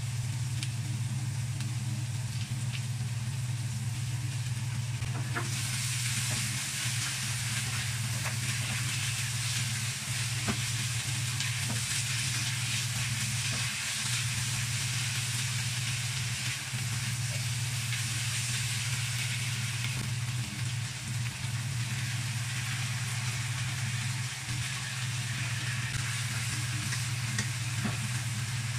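Pork belly and onion slices sizzling in a nonstick wok with oyster sauce while a spatula stirs them, with light scrapes and taps of the spatula. The sizzle grows much louder about five seconds in. A steady low hum sits underneath.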